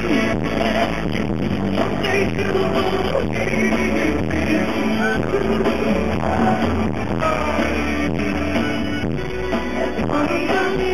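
Live pop music: a woman singing into a microphone over a full band with a steady beat.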